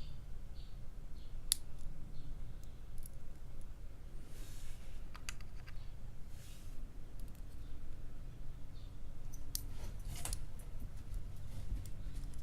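Sparse, sharp clicks and light rustling of tweezers working small pins and springs out of a disassembled padlock core, with the louder clicks about a second and a half in, around five seconds and near ten seconds, over a low steady hum.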